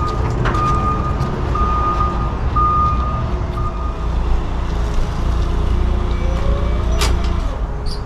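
Backup alarm beeping at a steady pitch about once a second over a heavy vehicle engine running; the beeping stops about halfway through while the engine keeps running, with a sharp click near the end.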